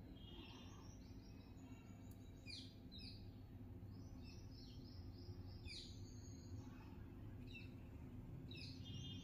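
Faint bird chirps, short repeated calls with a few quick downward-sweeping notes, over a low steady background hum.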